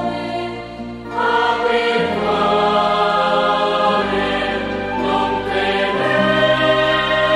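Choir singing in slow, sustained chords that change every second or two, swelling louder about a second in.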